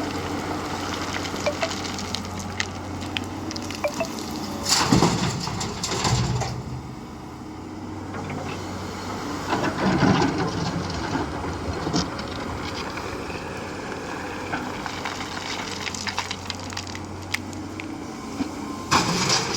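An engine running steadily with a low hum, with louder noisy surges about five and ten seconds in and again near the end, and scattered clicks and knocks.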